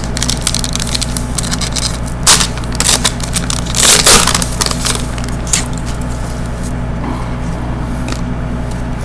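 Trading card pack wrapper crinkling and cards being handled, in irregular sharp crackles, loudest about two to four seconds in, over a steady low electrical hum.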